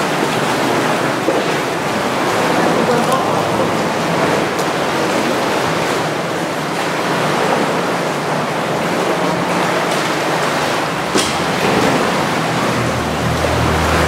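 Seawater sloshing and lapping against rock inside a sea cave, a steady rushing wash. There is a sharp click late on, and a low steady hum comes in near the end.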